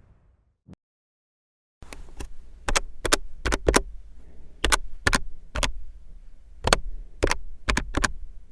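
A series of sharp clicks or taps, about fifteen at uneven intervals, over a low hum. They start about two seconds in, after a rushing noise has faded out and a short blip has sounded.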